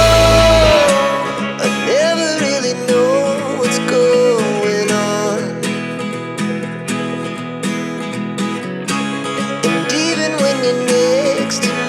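Background music with plucked acoustic guitar and a melody line; the deep bass drops out about a second in.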